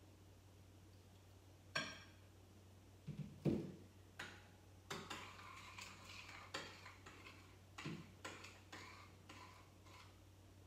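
Spoon clicking and scraping against a bowl while stirring white glue and borax activator into slime: a few separate knocks in the first seconds, then quicker clicks and scrapes about two a second.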